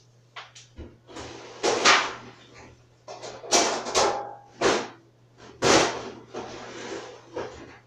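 Kitchen cupboards and cookware being handled: a string of knocks and bangs, doors and pans clattering, with a short metallic ring about four seconds in.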